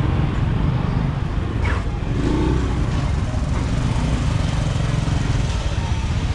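Small motorbike engines running at low speed with a steady low rumble, amid the general hubbub of a busy market lane.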